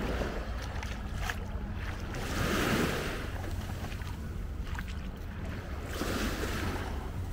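Small waves washing up on a sandy beach, surging twice a few seconds apart, the first surge the louder, over a steady low rumble of wind on the microphone.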